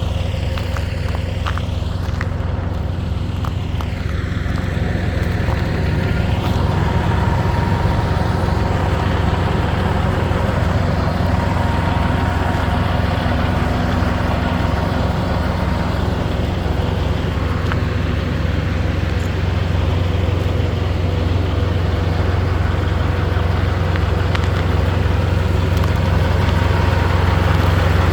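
Semi truck's diesel engine running steadily, a low, even drone with a few faint ticks in the first few seconds, growing slightly louder near the end.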